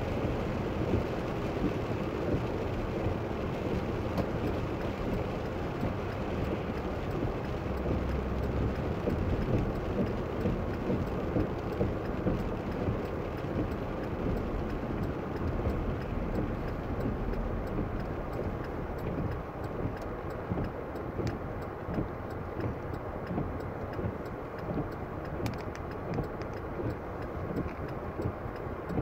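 Road noise inside a moving car's cabin: tyres hissing on wet pavement with the engine underneath, easing off over the second half as the car slows in traffic. A few faint clicks near the end.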